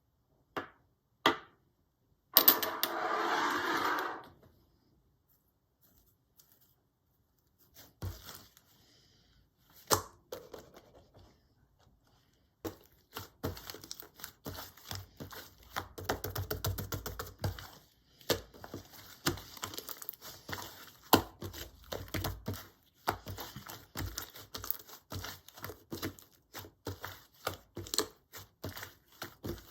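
A slightly grainy slime being handled, with a few single clicks and a brief loud rustle near the start, then from about twelve seconds in dense, irregular crackling clicks and pops as it is squished and stretched by hand.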